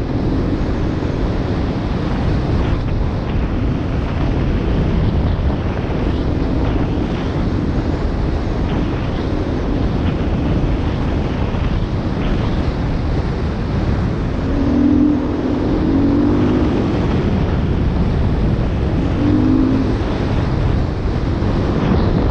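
Wind buffeting the microphone over the engine of a Beta 500 RR-S, a single-cylinder four-stroke dual-sport motorcycle, riding steadily along a dirt trail. The engine note stands out more clearly a few times in the second half.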